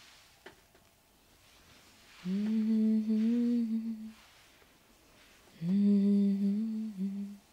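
A woman humming a tune with closed lips in two short phrases, the second starting about halfway through. There is a faint click shortly before the first phrase.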